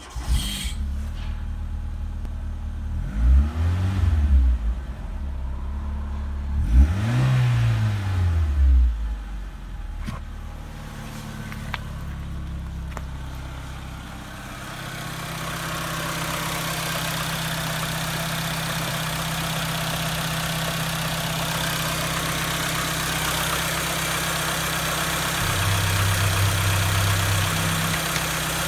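Renault Scenic 1.6 K7M petrol four-cylinder engine starting, then revved twice, each rev rising and falling back to idle within the first ten seconds. It then idles steadily, heard up close from the open engine bay in the second half.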